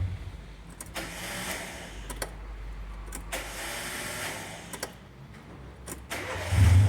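Car being started: the starter cranks with sharp clicks and a rough noise, and about six and a half seconds in the engine catches and runs loudly. The noise on starting is one the mechanic says comes from a fault in the flywheel ring gear or the starter drive.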